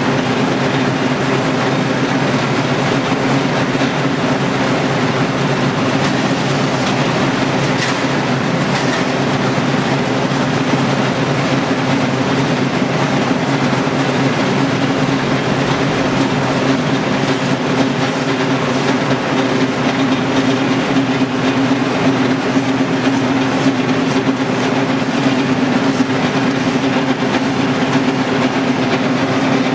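LK120 screw oil press running under load, its motor and gearbox turning the press screw as it crushes seed: a loud, steady mechanical drone with scattered light clicks.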